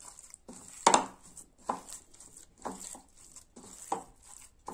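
Wet squelching of a hand mixing minced chicken paste with spices, lemon juice and oil in a bowl, a squelch about once a second, the loudest about a second in.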